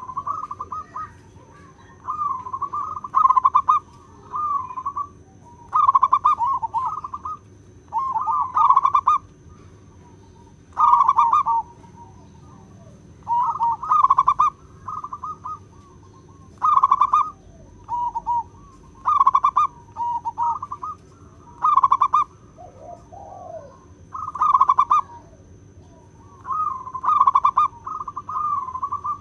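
Zebra dove (perkutut) cooing: a long run of short, trilled coos, one phrase every second or two.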